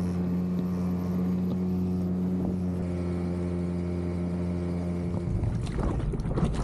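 Small outboard motor driving an inflatable dinghy, running at a steady pitch. About five seconds in the engine tone gives way to gusty wind on the microphone and water splashing.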